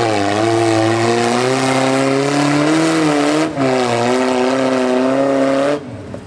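Rock-crawler buggy engine revving hard under load as it climbs a steep rocky slope. The pitch wavers with the throttle, dips briefly about three and a half seconds in, and falls away sharply near the end.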